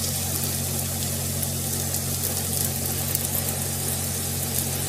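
Besan (gram-flour) batter sizzling in hot oil on a pan, a fine steady crackle over a constant low hum.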